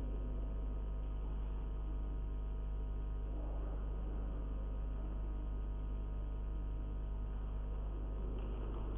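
Steady low electrical mains hum with a faint room background.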